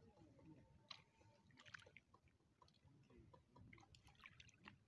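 Near silence: faint ambience with a few soft clicks and ticks, a small cluster about a second and a half in and another near the end.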